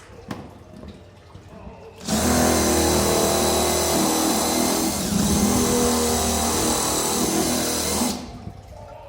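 Electric drill running steadily for about six seconds, starting and stopping abruptly, with a short dip in the middle: boring a hole in a plastic storage case for a valve fitting.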